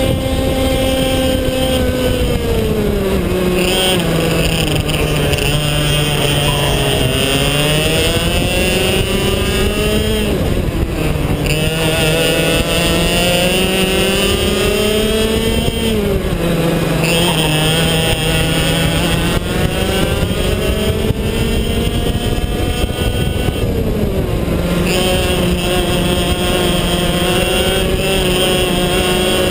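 IAME X30 125 cc two-stroke kart engine heard onboard at racing pace. Its pitch drops sharply each time the throttle is lifted and climbs again as it pulls out of the corner, four or five times over.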